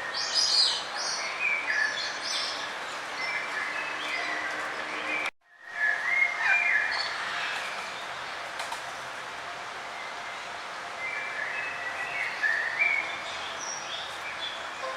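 Several songbirds singing and chirping over a steady rush of flowing river water. All sound drops out for a moment about five seconds in.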